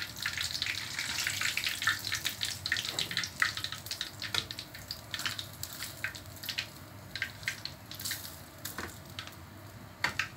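Hot cooking oil sizzling and crackling in a frying pan, the crackles thinning out and growing fainter.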